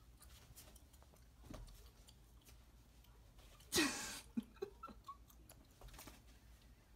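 Quiet room tone with faint scattered clicks. About four seconds in there is one short breathy voice sound with a briefly falling pitch, followed by a couple of tiny blips.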